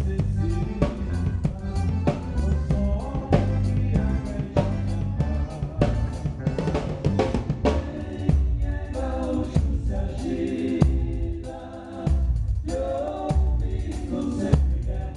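A band playing a song: a drum kit keeps a steady beat on bass drum and snare over a bass line, with a melody on top. The music thins out briefly about twelve seconds in.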